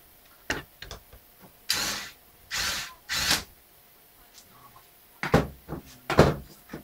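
Screwdriver work on a laptop's screen bezel: a few clicks, then three short rasping bursts around two to three seconds in, then knocks and clicks as the tool is handled and set down on a wooden desk, the loudest near the end.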